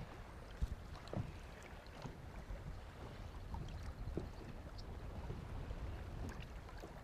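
Faint low rumble of a small fishing boat sitting on the water, with a few light knocks about half a second apart near the start and another a few seconds later.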